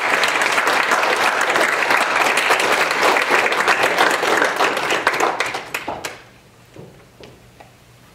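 A roomful of people applauding, dense steady clapping that dies away about six seconds in.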